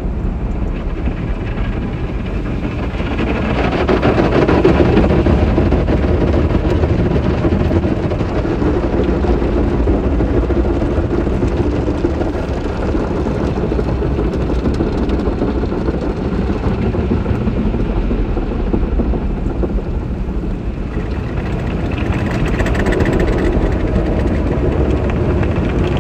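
Tunnel car wash brushes and water spray working over the car, heard from inside the cabin as a steady, heavy rushing and rumbling that swells a few seconds in.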